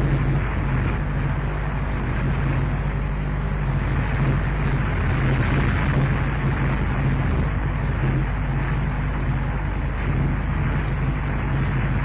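Steady rushing wind noise on an outdoor webcam microphone, with a constant low hum beneath it.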